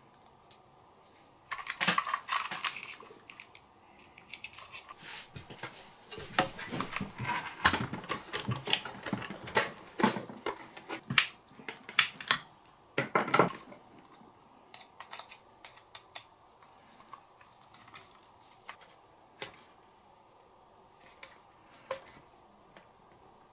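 Hands handling and fitting small parts on an RC car chassis: a busy clatter of clicks, taps and rustling for about twelve seconds, then only scattered light clicks.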